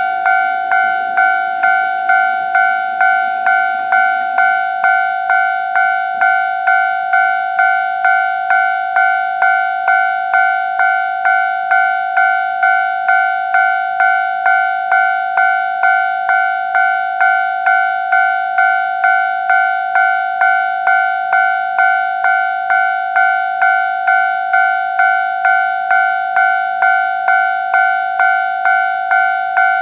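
Japanese railway level-crossing warning bell ringing in an even, unbroken rhythm of about one and a half clangs a second, warning that a train is approaching.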